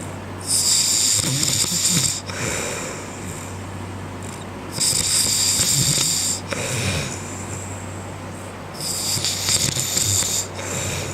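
A man snoring in his sleep: three long, noisy snores about four seconds apart, over a steady low hum.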